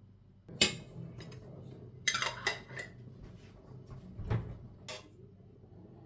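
Metal spoon clinking and scraping against a stainless steel pot and a ceramic dish as thick homemade yogurt is scooped out. A sharp clink about half a second in, a quick cluster of knocks around two seconds in, and two more clinks near the end.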